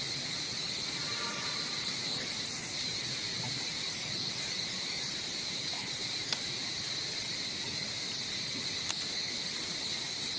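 Insects trilling steadily in one high-pitched band, with a couple of sharp clicks about six and nine seconds in.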